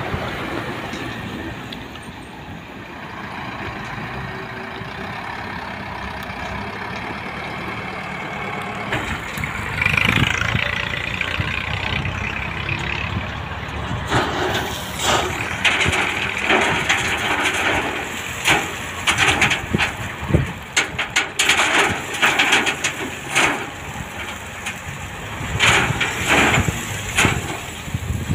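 Heavy diesel dump truck engine running, with a burst of hissing about ten seconds in. Through the second half come irregular clattering and crunching as the truck tips its load of gravel out of the raised bed.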